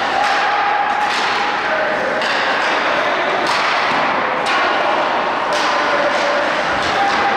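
Ice hockey game in a rink: sharp knocks and thuds of sticks, puck and boards about once a second, over a steady din of rink noise and spectator voices.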